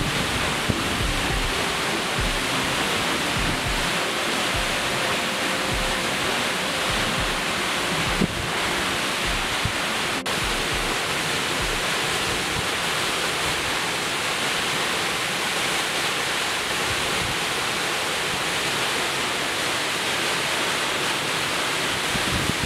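Waterfall pouring into its plunge pool, a steady, even rush of falling water. Faint background music with a low regular beat sits beneath it and fades out about ten seconds in.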